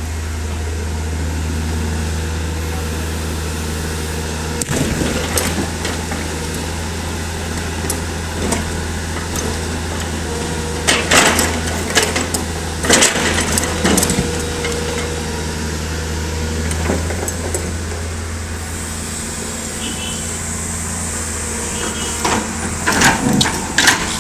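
L&T PC200 hydraulic excavator's diesel engine running steadily under load, with sharp clanks and cracks of the bucket working rock a few times: about five seconds in, twice around the middle, and in a cluster near the end.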